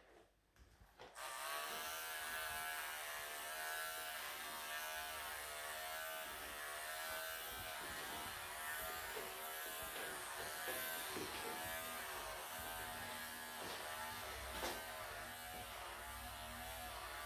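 Electric pet clippers switched on about a second in, then buzzing steadily as they clip through a Persian cat's thick, matted coat, the tone wavering a little as they work.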